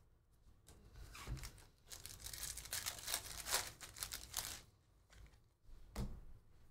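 Foil wrapper of a 2023 Panini Prizm football hobby pack being torn open and crinkled by hand, a rustling crackle lasting a few seconds, then a single soft knock near the end.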